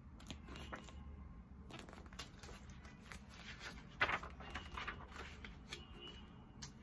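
Paper pages of a picture book being handled and turned: faint rustling with small clicks, and one louder flap of pages about four seconds in.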